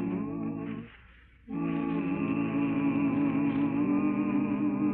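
Interlude music of long held chords with a slow wavering vibrato. It breaks off about a second in, and a new held chord comes in half a second later.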